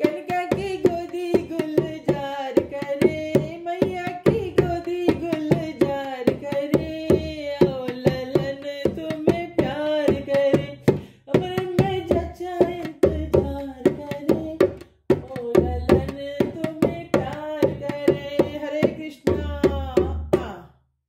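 Women singing a sohar, a traditional North Indian folk song for a baby's birth celebration, to a steady beat of hand percussion. The singing and beat stop near the end.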